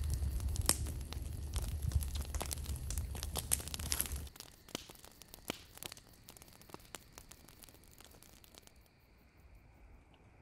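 Wood campfire crackling with dense sharp snaps over a low rumble. About four seconds in it drops to a much fainter, sparser crackle of a fire burned down to glowing coals.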